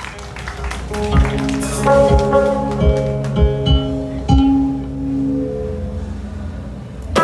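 Amplified electric shamisen playing a slow solo phrase of single plucked notes that ring over a few low held notes, dying away about five and a half seconds in. The full band comes in with drums at the very end.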